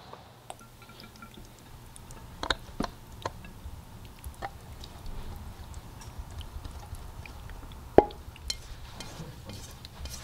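Saucy chicken and tomato stir fry being scooped out of a pan onto a plate: soft wet drips and plops with scattered clicks of a utensil against the pan. One sharp knock about eight seconds in is the loudest sound.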